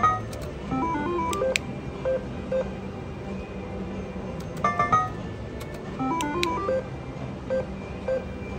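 Blazing Double Red 7s dollar reel slot machine beeping as credits are bet and spins are started. Each spin brings a short run of stepped electronic tones with button clicks, twice in this stretch, followed by single short beeps while the reels turn. A steady low hum runs underneath.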